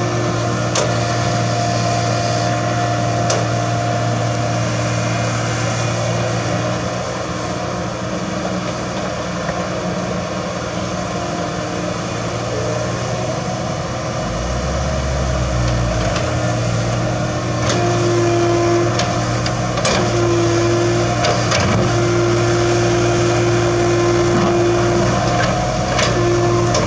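Komatsu GD555 motor grader's diesel engine running steadily, with a higher whine that comes and goes in the second half and a deeper rumble briefly about halfway through.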